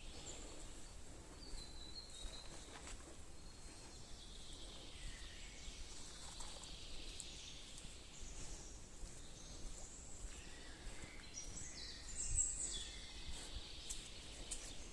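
Woodland ambience with faint, scattered high-pitched bird calls, and a brief louder burst of calls about twelve seconds in.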